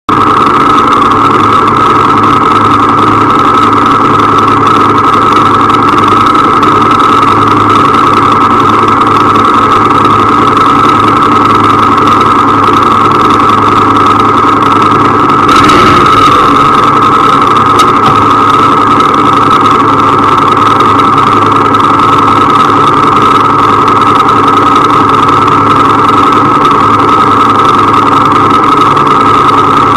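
Motorcycle engine idling steadily, with a brief swell in the noise about halfway through.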